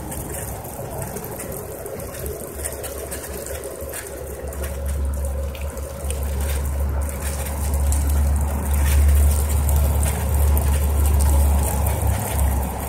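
Pool aerator spraying water onto the pool surface with steady splashing, as a dog snaps and laps at the water. Under it a low rumble swells from about a third of the way in and is loudest near the end.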